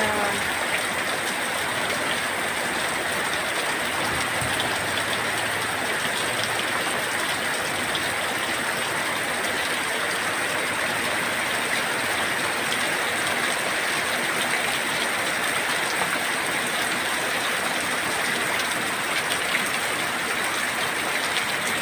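Heavy tropical rain pouring steadily, a dense even hiss that does not let up.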